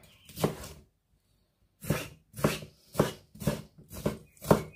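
Kitchen knife cutting vegetables on a chopping board: a single cut, a short pause, then a steady run of cuts about two a second.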